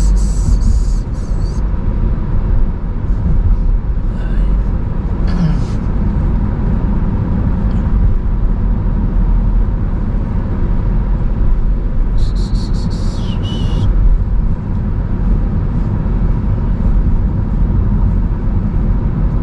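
Road noise inside a moving car's cabin: a steady low rumble from tyres and engine, with two short hissing swooshes, one right at the start and one about twelve seconds in.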